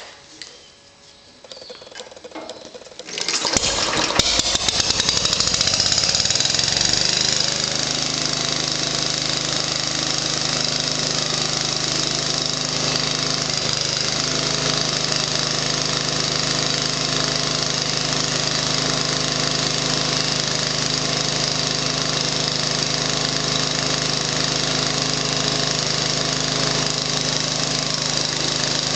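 Briggs and Stratton Model 23 single-cylinder gasoline engine on a belt-driven Hamco generator, pull-started: it catches about three seconds in, its pitch rising over several seconds as it comes up to speed. It then runs steadily, driving the generator head through two V belts.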